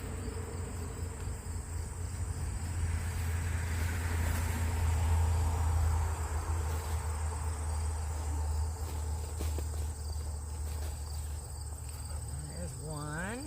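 Insects chirring steadily in a high, even drone over a low rumble, while soil from a potato-growing container is tipped out and spills with scattered scrapes and clicks.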